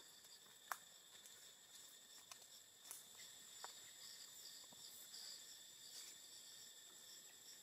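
Faint insects chirping in the forest: a steady high-pitched drone with a quick repeated chirp over it, and a few scattered light clicks, the sharpest within the first second.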